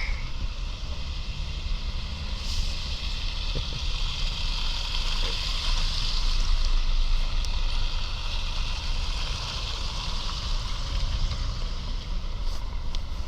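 Traffic passing on a wet, snowy road: the hiss of tyres swells to a peak about halfway through and then fades, over a steady low rumble.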